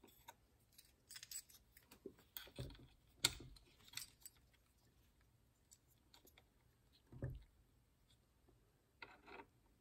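Faint, scattered clicks and light knocks of small metal parts being handled on a vintage sewing machine, the sharpest about three seconds in, with a duller thump about seven seconds in.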